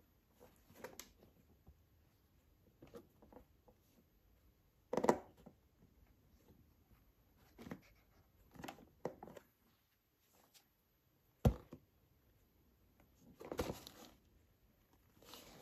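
Intermittent handling sounds of football boots and their packaging: soft rustles and knocks with gaps of quiet between them, a louder thump about five seconds in, a sharp knock about eleven seconds in, and a short cluster of rustling near the end.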